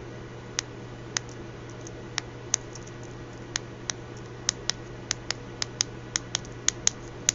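Keys of a 4x4 matrix keypad being pressed one after another, about twenty sharp, separate clicks at an uneven two to three a second as each button is tested for a response.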